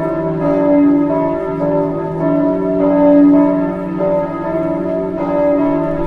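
Church bells ringing continuously, overlapping strokes of several different pitches following one another about every half second to second, each ringing on under the next.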